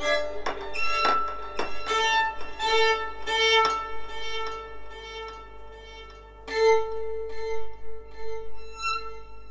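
Background music led by a violin playing long held notes, with a new note starting about two-thirds of the way through.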